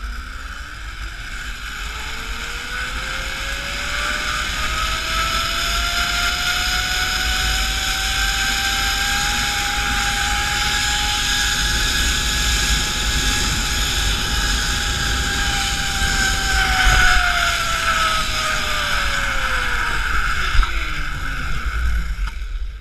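Zip-line trolley pulleys running along a steel cable: a whine that rises in pitch as the trolley gathers speed, holds steady, then falls over the last few seconds as it slows. Wind rumbles on the microphone underneath.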